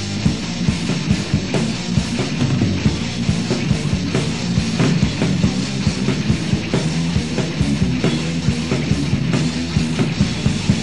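Heavy metal band recording: distorted electric guitars and bass over busy, driving drums in a passage with no vocals.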